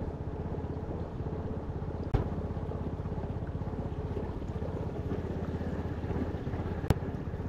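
Engine of a small motorboat running steadily with a fast, even putter. Two sharp knocks cut through it, about two seconds in and near the end.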